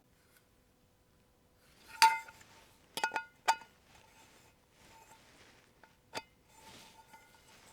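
Hard objects clinking against each other, each strike ringing briefly with a bell-like tone, like metal being struck. The loudest clink comes about two seconds in, three more follow close together about a second later, and a last one comes near six seconds, with soft handling rustle in between.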